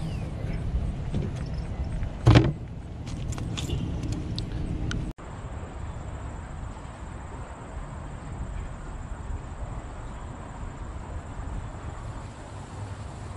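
Clicks and knocks of gear being handled in a Dodge Charger's open trunk, then the trunk lid shut with one loud thump about two seconds in. After an abrupt cut about five seconds in, steady wind and open-air noise.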